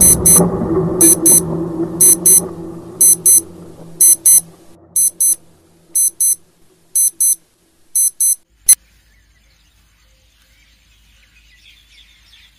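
An alarm clock beeping in high-pitched double beeps about once a second. The beeping stops with a sharp click nearly nine seconds in. Low background music fades out under it during the first few seconds.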